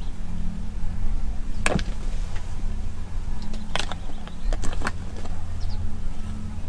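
Vehicle engine idling steadily, with a few sharp clacks about two, four and five seconds in.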